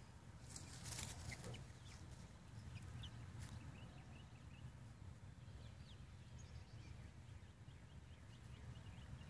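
Faint soft peeping of six- to seven-week-old chickens foraging, with a quick run of short chirps near the end. A brief rustle about a second in.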